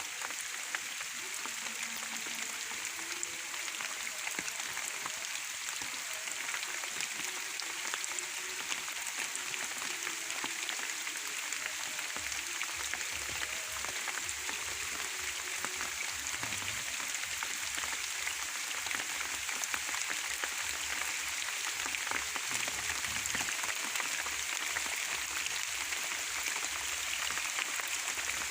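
Steady rain falling, a dense even hiss of many small drops.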